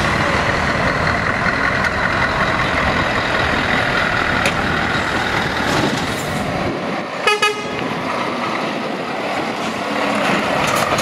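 Scania heavy trucks' diesel engines running as the lorries pull away and drive past, with two quick horn toots about seven seconds in.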